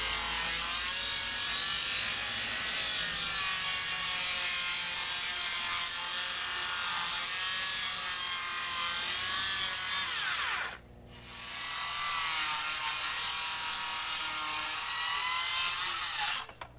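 A Makita circular saw cutting through a boat's hatch coaming, its blade pitch wavering under load. About eleven seconds in, the saw spins down and stops, then starts again and cuts on until it winds down near the end.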